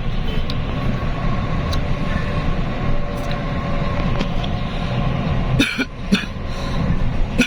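Steady engine and road rumble inside a moving bus on the highway, with a faint steady whine. About five and a half seconds in come two brief sharp sounds close together.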